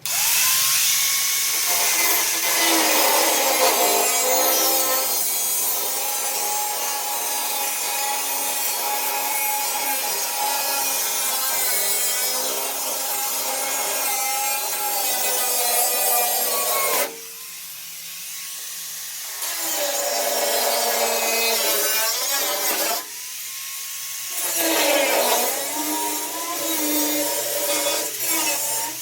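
A power tool running, with a rough rasping noise over a steady high whine that winds up at the start; the rasping drops out twice for a second or two and comes back.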